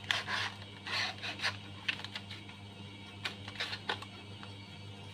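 Light rubbing, scraping and clicking of hands handling the opened laptop's plastic case and internal parts, in a few short bursts in the first second and a half and again after about three seconds, over a steady low hum.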